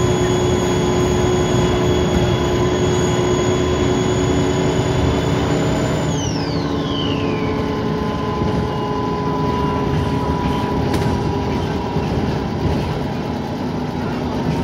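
Dennis Trident 2 double-decker bus engine running under way, heard from inside the bus, with a loud high turbocharger whine. About six seconds in, the whine falls sharply in pitch as the turbo spools down, while the engine and road noise carry on steadily.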